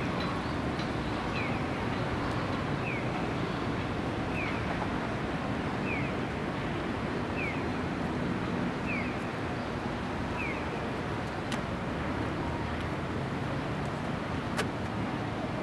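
Steady outdoor noise of wind and distant traffic, with a short high falling chirp repeating about every second and a half through most of it; the sound cuts off abruptly at the end.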